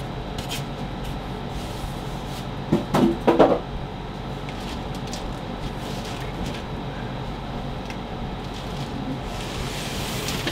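Packing being pulled out of a large cardboard box: a quick cluster of knocks and scrapes from foam and cardboard about three seconds in, then a few faint clicks. A steady low hum runs underneath.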